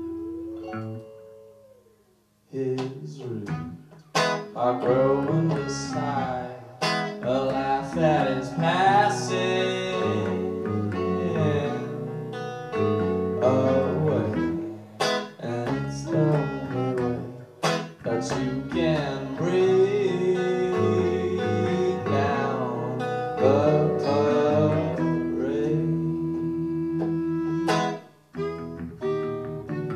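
Live band music: a held note fades out about two seconds in, then a song starts with a man singing over guitar accompaniment.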